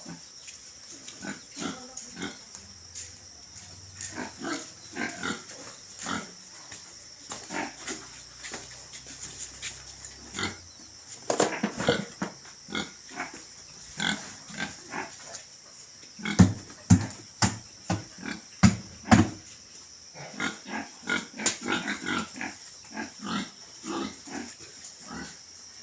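Pigs grunting, many short irregular calls one after another, louder for a few seconds past the middle, over a steady high hiss.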